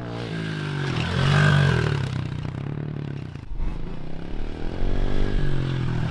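Pit bike engine revving up and easing off as it is ridden, its pitch rising and falling with the throttle. There is a brief drop about three and a half seconds in, and it is loud again near the end as the bike passes close.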